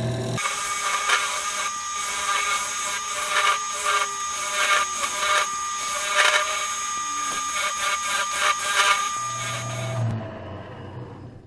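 Flat chisel cutting the bloodwood end of a box spinning on a wood lathe: a rough scraping cut with irregular sharp strokes, throwing shavings. About ten seconds in the cutting stops abruptly and the lathe's motor hum fades away.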